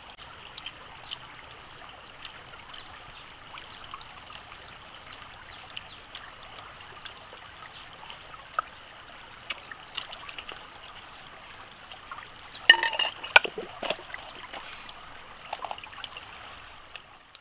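Shallow rocky stream trickling steadily over stones, dotted with small sharp clicks. A louder brief cluster of clicks and crackle comes about two-thirds of the way through.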